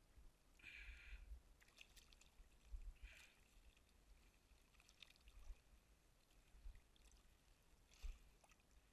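Faint water dripping and splashing as a wet monofilament cast net is hauled in by hand from a river, with a few short sharper splashes, one of the loudest near the end.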